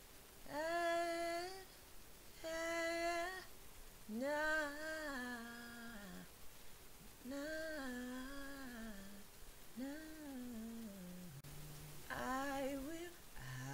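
A woman's voice humming and singing short wordless notes, trying out pitches to find her next harmony part. First come two held notes, then several phrases that rise and fall, ending on lower notes.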